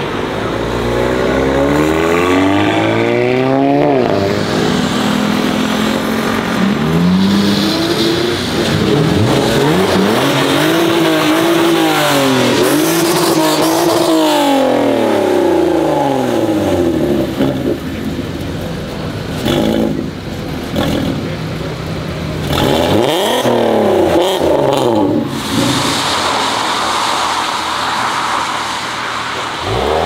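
Modified Volkswagen Golfs accelerating hard, their engine revs climbing and falling several times as they pull through the gears and pass. Sharp exhaust pops and crackles come in quick clusters after the middle and again later on.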